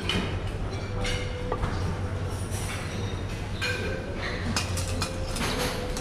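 Restaurant dining-room ambience: scattered clinks of plates and cutlery over a steady low hum.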